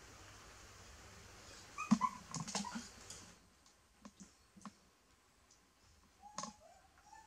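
A young animal's short, high whimpering calls, several in quick succession about two seconds in, with light clicks, and one more drawn-out whimper near the end.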